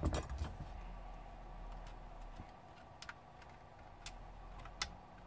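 Light plastic clicks and taps from a laptop's case parts being handled and fitted together by hand during reassembly: a quick cluster at the start, then a few single clicks about a second apart.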